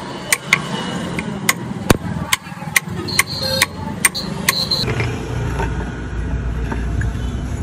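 Small hammer striking a flat stone grinding slab, sharp strokes about two a second, pecking the surface rough for grinding, stopping about five seconds in. A steady low rumble follows to the end.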